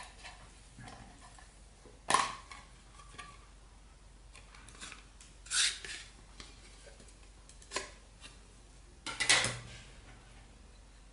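Hard plastic parts of a clear 2.5-inch drive enclosure being handled and opened: scattered clicks and knocks, the loudest about two seconds in, midway and a cluster near the end.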